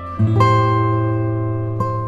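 Background music of plucked guitar notes, with a low note entering about a quarter second in and ringing on under the melody.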